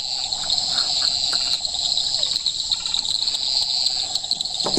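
Steady chorus of insects trilling in several high, even bands, with a lower pulsing trill underneath; a single sharp knock near the end.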